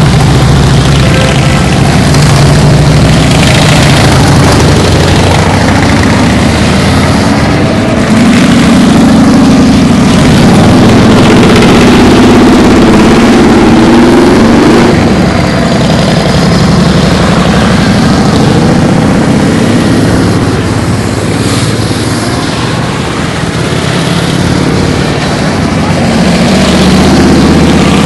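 A procession of motorcycles, mostly large cruisers and touring bikes, riding past one after another with their engines running loud. Engine pitch rises and falls as bikes rev past, most plainly in the middle of the stretch.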